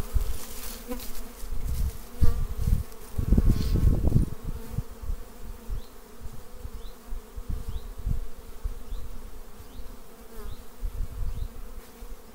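Carniolan honeybees buzzing in a steady hum as they fly around the hive entrance, with a low rumble surging about two to four seconds in.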